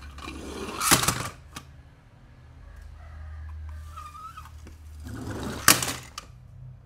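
Toy cars pushed over an artificial grass mat with a rustle, then dropped into a plastic storage bin of toy cars, clattering loudly twice: about a second in and again near the end.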